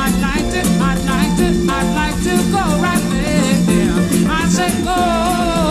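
Upbeat Latin-style band music: a wavering melodic lead line over steady bass notes, with acoustic guitar.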